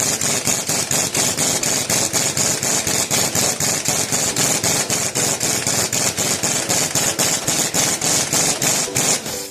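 Rapid, steady hammering, about six sharp metal blows a second, stopping just before the end.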